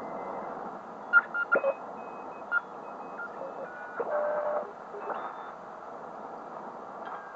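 Tecsun PL-660 shortwave receiver's speaker giving steady band hiss as it is tuned up through the 7 MHz amateur CW band. Morse code carriers beep in and out at different pitches as the dial passes them, with a few sharp louder blips about a second in.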